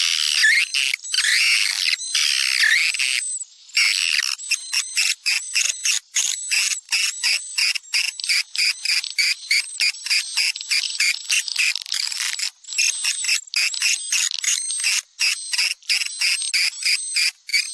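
Swiftlet lure call ('suara panggil walet') played back to draw swiftlets into a nesting house: a recording of swiftlets twittering. It opens as a dense trill of sweeping chirps, then after a brief break turns into a fast run of short, sharp chirps, about four a second, over a thin steady high tone.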